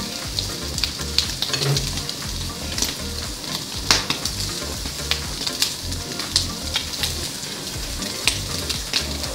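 Barbecue-sauced pork ribs sizzling on a hot gas grill: a steady hiss broken by scattered sharp crackles and pops as the sauce is brushed on and drips onto the grate.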